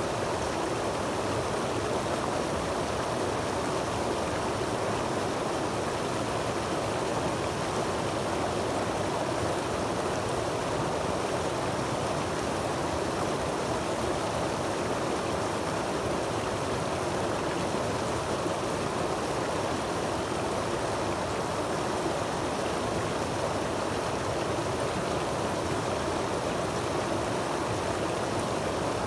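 Creek water cascading over and between granite boulders into a shallow pool: a steady, unbroken rush of running water.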